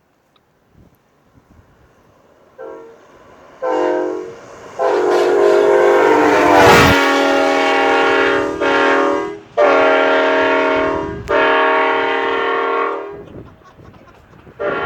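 Hornblasters Admiral air train horn sounding a series of blasts of a steady chord: two short toots, then one long blast of several seconds followed by three shorter blasts in quick succession, with another blast starting near the end.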